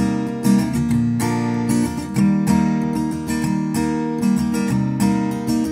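Background music: acoustic guitar strumming steady chords.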